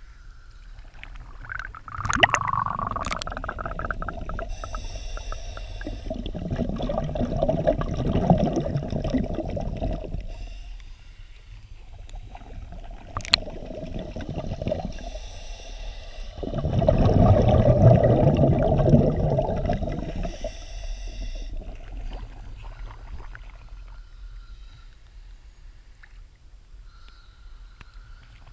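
Air bubbling out of a diver's Jack Browne full-face mask, heard underwater: two long surges of bubbling with a steady tone of flowing air beneath them and a few sharp clicks.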